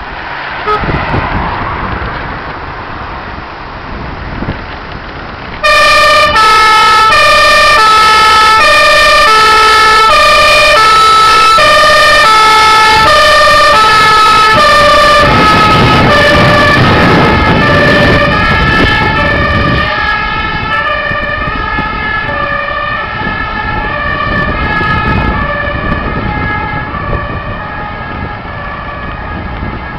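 Fire engine truck engine running as it pulls out, then its two-tone siren starts abruptly about six seconds in, loud and alternating between a high and a low note about twice a second. It eases in level from about halfway as the truck drives off, still sounding.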